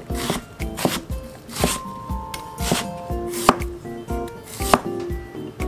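Chinese cleaver cutting through onion and then slicing ginger on a wooden cutting board, a sharp knock about once a second as the blade hits the board.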